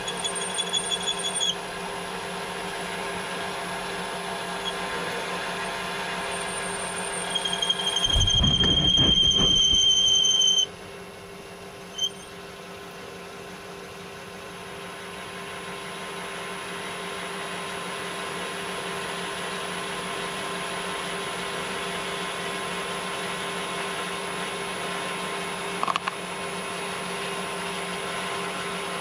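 Metal lathe running while a small piston is machined. The cutting tool squeals with a high steady tone, once briefly at the start and again for about three seconds, heavier and louder, ending about ten seconds in. Under it the machine keeps up a steady hum, which drops in level and then slowly builds again.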